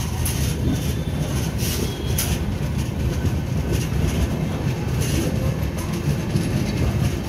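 Coaches of the Mumbai CSMT–Howrah Mail passenger train running along the track, heard from an open coach doorway: a steady rumble of wheels on rail with a hiss and occasional short clacks.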